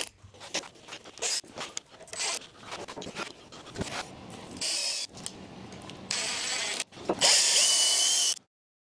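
Cordless drill driving screws into a wooden 2x2 frame in short bursts, with knocks of wood and tool in between; the longest and loudest run comes near the end and cuts off abruptly.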